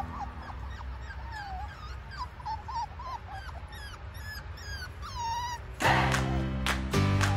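West Highland White Terrier puppies whimpering: a quick run of short, high whines that bend up and down in pitch, two or three a second. Strummed guitar music comes in near the end.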